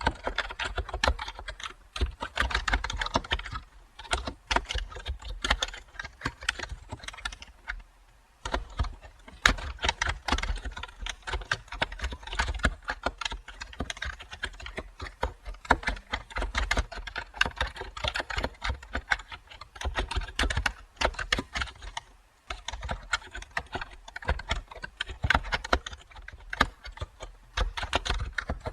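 Continuous typing on a computer keyboard: a fast, irregular run of key clicks, with brief pauses a few times.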